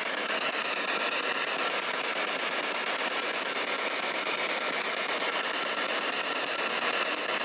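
Spirit box sweeping through radio frequencies, giving a steady hiss of radio static.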